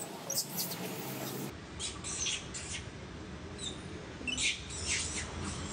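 Newborn long-tailed macaque squeaking: a series of short, high-pitched squeaks and chirps, repeated several times.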